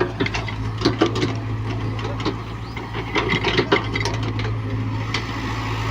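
Hyundai hydraulic excavator's diesel engine running steadily, with irregular clunks and scraping as the bucket works the soil. The clunks cluster about a second in and again around three to four seconds in.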